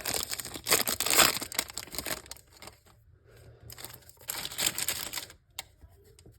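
Wrapper of a 2020 Topps Chrome baseball card pack crinkling as it is torn open and handled, in two spells of crackling, with a sharp click about five and a half seconds in.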